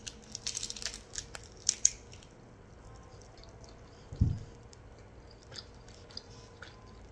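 Mouth-close eating of a nori-wrapped onigiri: a bite followed by chewing, with crisp crunches of the nori sheet over the first two seconds, then quieter chewing. A dull low thump about four seconds in.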